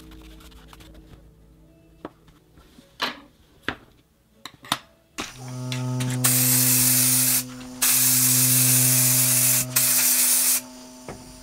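Aerosol can of clear spray paint hissing in two bursts, one of about a second and then a longer one of nearly three seconds. A few light clicks come before the spraying.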